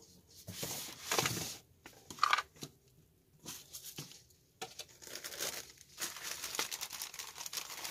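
Clear plastic bag of hydroponic growing pots crinkling as it is picked up and handled, continuously from about four and a half seconds in. Before that, a few short rustles and knocks as the kit's items are moved about.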